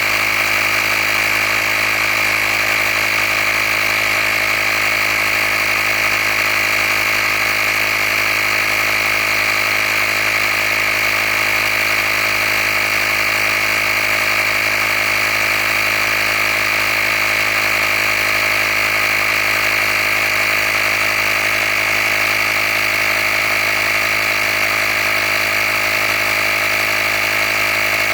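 Handheld air compressor from a tire repair kit running steadily while inflating a tire, an even mechanical whine with no change in pitch.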